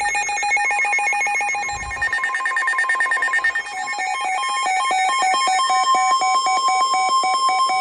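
Electronic emergency alert tones, rapidly alternating in pitch like a warbling alarm. From about halfway they become even beeps, about four a second, and a steady tone joins near the end.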